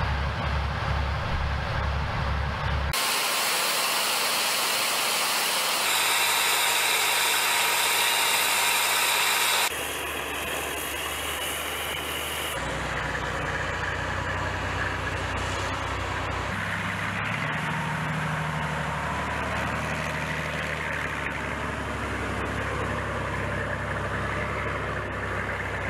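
Diesel engines of heavy eight-wheeled military missile-launcher trucks running and idling. The sound changes abruptly several times as shots cut, with a loud hissing stretch from about 3 to 10 seconds in.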